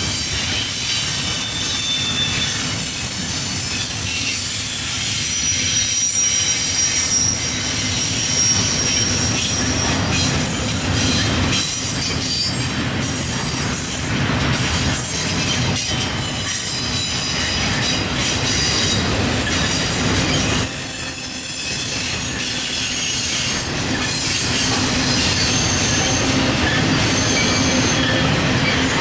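Double-stack intermodal freight cars rolling past: steady wheel-on-rail noise with thin, high wheel squeals that come and go, and occasional clanks from the cars.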